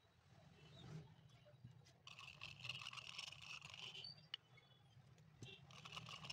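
Faint scraping of a glue brush worked around inside a shallow metal tin of adhesive, in two short spells, about two seconds in and again near the end, over a low steady hum.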